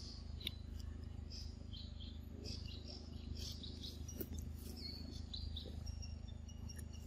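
Small birds chirping and calling in quick, scattered bursts, with a few brief whistled notes near the end, over a steady low hum.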